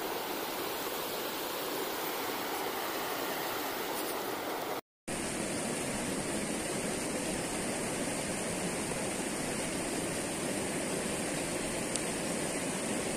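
Steady rush of a shallow river flowing over rocks, an even hiss with no speech. It cuts out completely for a moment about five seconds in, then carries on.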